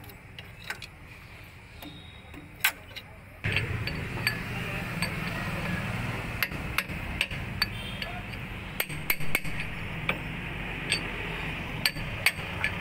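Hammer blows on a steel screwdriver or drift at the PTO shaft bearing of an Eicher 333 tractor: a string of sharp metallic taps and knocks at an uneven pace. A steady background noise comes up about three and a half seconds in.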